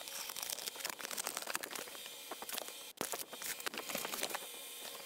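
Cardboard box flaps and packing material being handled, rustling and crinkling with scattered irregular crackles and scrapes.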